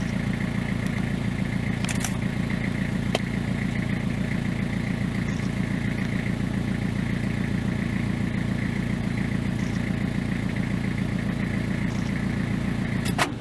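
An engine running steadily with a fast, even pulse, with a few light clicks over it; it cuts off suddenly near the end.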